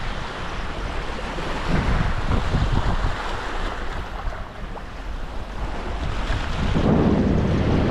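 Wind buffeting the microphone in gusts over the wash of lake waves against the shore, with a stronger gust near the end.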